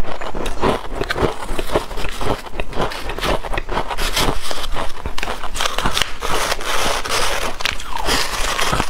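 Freezer frost crunching and crackling as it is chewed, with a wooden spoon scraping and scooping through a bowl of loose frost in the second half.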